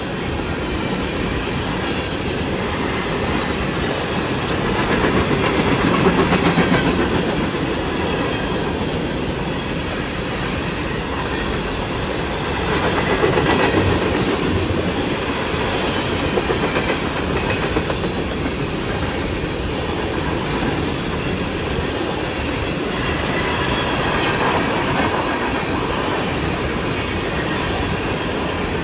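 BNSF freight train's open-top hopper cars rolling past at steady speed: a continuous rumble with the wheels clacking over rail joints, swelling louder twice.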